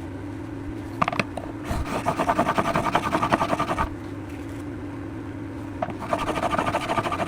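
A steel plane blade rubbed rapidly back and forth on a wet sharpening plate, lapping its back flat. Two spells of fast, even scraping strokes follow a couple of light clicks about a second in.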